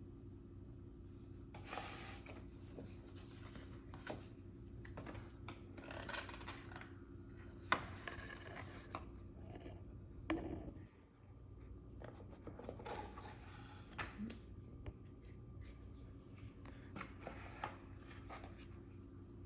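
Cardboard snack box and its paper packaging being handled and unpacked: on-and-off rubbing, scraping and rustling, with a sharp click about eight seconds in, over a steady low hum.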